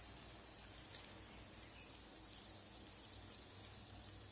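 Hot oil sizzling faintly in a kadai as food fries, a soft steady hiss with a few small pops.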